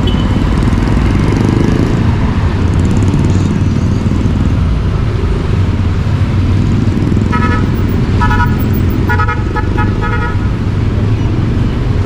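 Steady motorcycle engine and road rumble while riding through city traffic. About seven seconds in, a vehicle horn gives a quick run of about five short toots.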